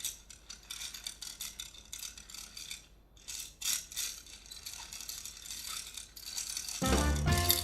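Rapid clicking and rattling of a small object handled for a foley sound effect, going in uneven runs. A louder, lower sound comes in near the end.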